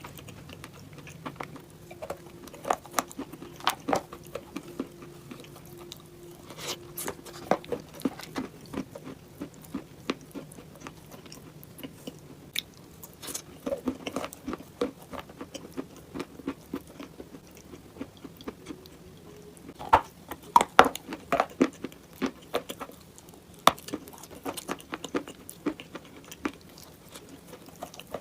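A person biting into and chewing dry, brittle eating clay close to the microphone: irregular sharp crunches and snaps, the loudest cluster about two-thirds of the way through.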